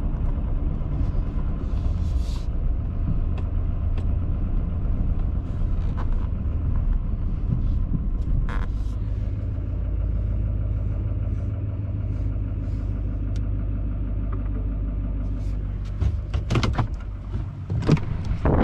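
Truck engine running at low speed, a steady low rumble heard from inside the cab. Near the end come a few irregular knocks and rustles.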